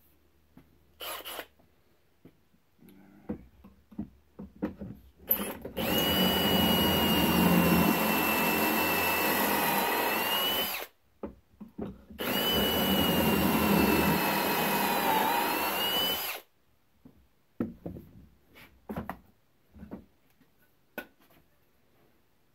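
Cordless drill boring pocket holes into a board through a Kreg pocket-hole jig: two runs of about five and four seconds, a second apart, the motor's whine dipping and then rising just before each stops. Light clicks and knocks of handling the jig and board come before and after.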